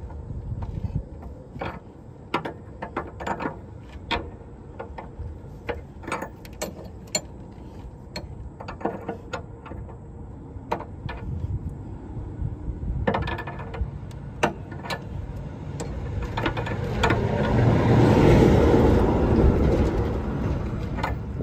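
Hand tool clicking and ticking on the brass air fittings on top of a semi truck's air spring as they are tightened, in short, irregular clicks. About sixteen seconds in, a rush of passing road traffic swells up and fades.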